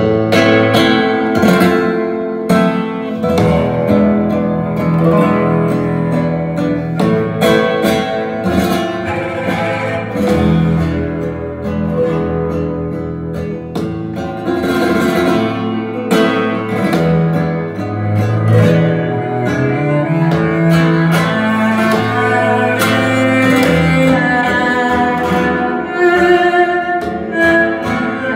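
Flamenco guitar music playing through a pair of SABA Green Cone full-range speakers in Bongo cabinets, driven by a 300B tube amplifier.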